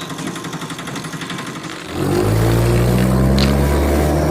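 A buzzy rattle, then about two seconds in a louder, steady engine sound starts and runs on.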